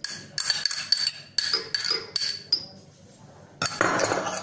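A metal spoon clinking and scraping against a small ceramic bowl as green chutney is scraped out: a run of light clinks with short ringing, then a pause and a brief rougher scraping sound near the end.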